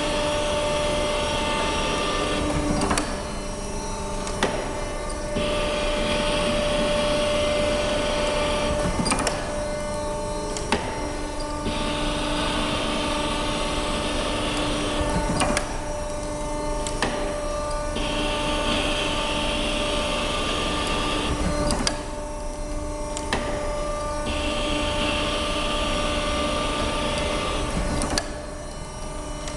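Flour-mill roller renewing machine working a mill roll: a steady motor hum, with a higher scraping hiss that runs for about three and a half seconds, then breaks off for two or three seconds with a few knocks. This cycle repeats about every six seconds, five times.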